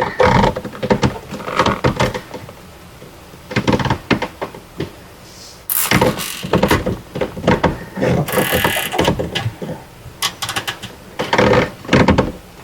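Hand work with zip ties on the hoses of a water pressure regulator: scattered clicks and knocks with a few short bursts of rustling.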